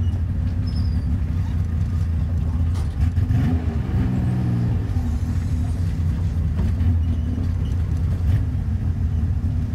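Truck engine running as the truck reverses slowly, a steady low rumble with a brief rise in revs about three and a half seconds in.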